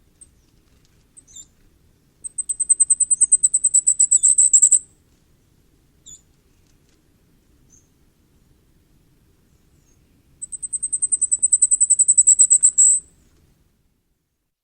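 Common firecrest singing: two songs, each a rapid run of very high, thin notes lasting about two and a half seconds and growing louder toward the end. A few short, faint high call notes come between them.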